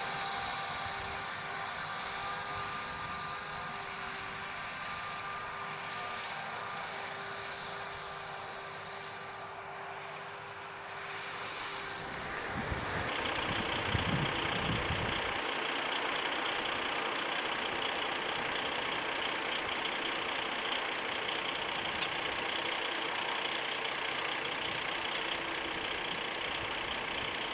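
John Deere 6105R tractor running steadily while spreading mineral fertiliser with a Rauch Axis M twin-disc spreader, its engine note carrying a few steady tones. About halfway through the sound changes to a more even, hissing drone as the tractor is heard from further away, with a brief low rumble just after the change.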